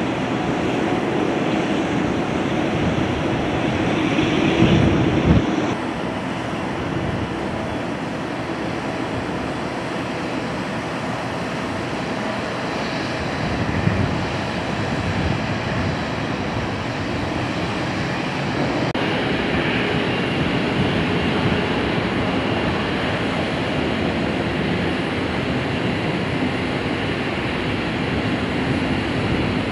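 Boeing 787 airliners' jet engines running on the ground as the jets roll along runway and taxiway: a steady rush of jet noise, with a short louder peak about five seconds in and another about halfway through.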